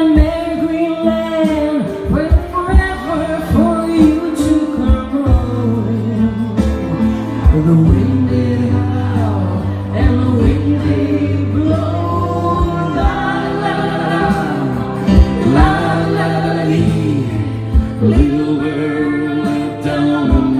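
Live acoustic band music with singing: a sung melody over steady low bass notes and a regular low beat.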